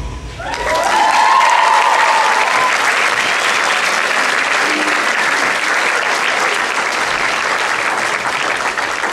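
Audience breaks into applause about half a second in, right as the song's music stops, with a few voices cheering over the first couple of seconds; the clapping then continues steadily.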